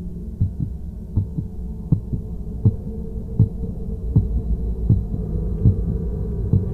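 Heartbeat sound effect: a double thump repeating about every three quarters of a second over a low, steady drone that slowly grows louder.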